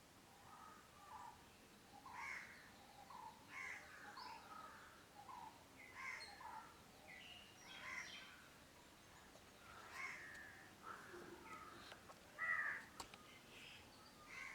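Birds calling: many short, rough calls following one another every second or so, with one louder call near the end.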